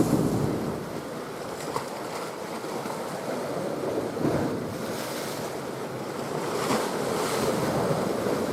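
Wind and sea waves: a steady rush of noise, loudest in the first second.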